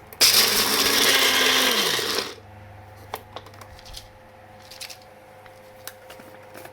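Electric grinder run in one short pulse of about two seconds, coarsely grinding roasted peanuts: the motor spins up, runs, and winds down, followed by a few light clicks.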